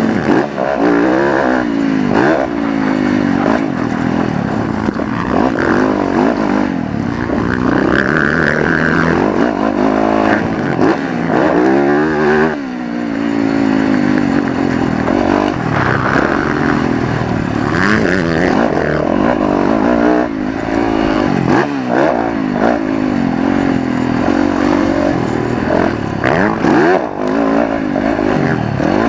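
Motocross dirt bike engine under race throttle, revving up and dropping again and again as the rider shifts and rolls off, with a brief chop of the throttle about twelve seconds in before it climbs back up.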